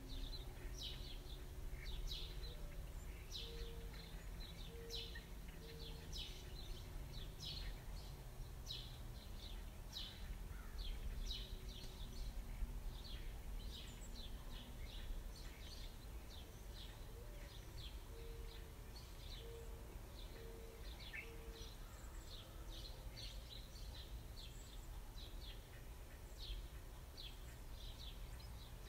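Small birds chirping, short high chirps a few times a second, over a steady low background rumble.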